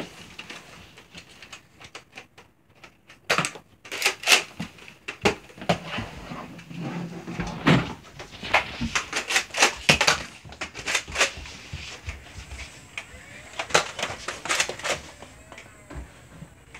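Irregular clicks and knocks, some in quick clusters, over a faint hiss.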